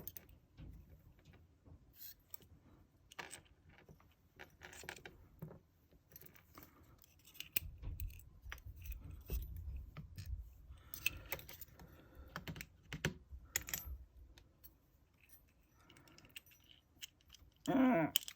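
Small metal lock parts of a Yale euro cylinder clicking and clinking as the lock is taken apart by hand, with scattered sharp ticks and some handling rumble in the middle. A louder brief sound comes near the end.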